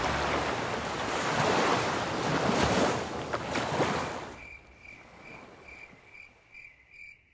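A loud rushing noise like surf that fades away about four seconds in, leaving a cricket chirping at night, a faint high chirp repeating about two or three times a second.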